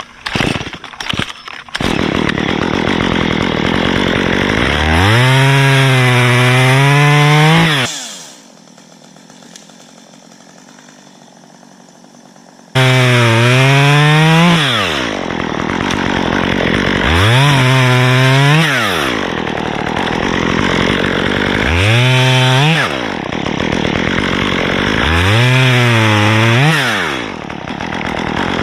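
Two-stroke top-handle chainsaw cutting into a dead pine trunk, revving up and dropping back under load over and over. It cuts off abruptly about eight seconds in and comes back at full revs about five seconds later. A few clicks come before it in the first two seconds.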